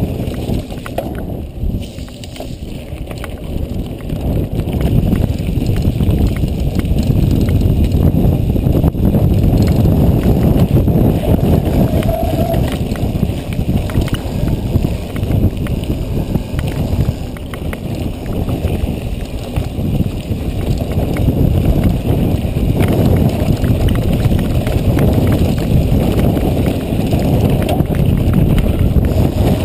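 Mountain bike ridden fast down a rough dirt and gravel track: tyres crunching over stones and the bike rattling over bumps, under a heavy rumble of wind on the microphone.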